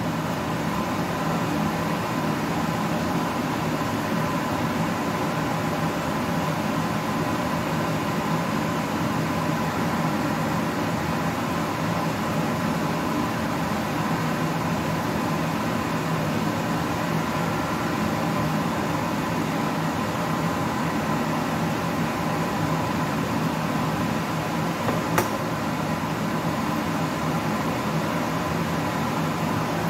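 Steady machine hum of a running motor-driven appliance or fan, even and unchanging, with one brief click near the end.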